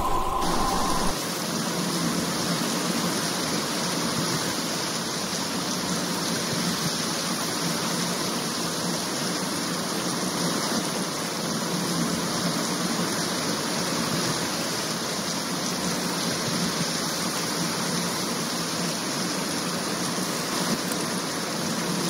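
Steady, even rushing of water, a hiss with no breaks or separate events, taking over about a second in.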